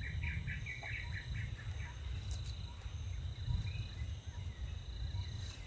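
Savanna ambience: a steady high insect drone, cricket-like, with a quick run of short chirps in the first second over a low, steady background noise.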